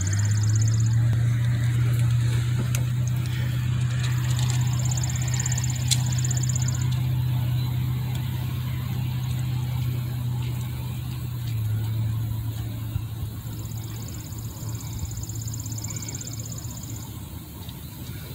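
Truck engine idling, a steady low hum that steps up slightly about a second in and settles back down around the middle. A faint high buzz comes and goes over it.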